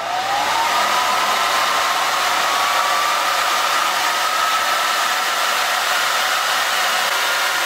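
Delta cooling fan on a Tesla K80 spinning up to full speed under PWM control, because its temperature sensor reads 80 degrees. A loud rush of air carries a whine that climbs quickly in the first second, then keeps rising slowly as the fan reaches 100%.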